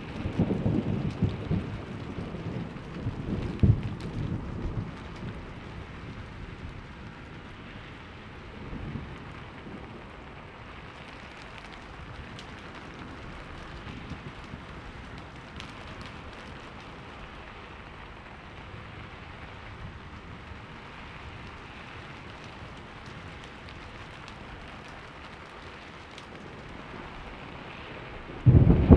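Steady rainfall with thunder. A low rumble rolls and fades over the first few seconds, leaving the even hiss of rain, and a new loud peal of thunder breaks in suddenly near the end.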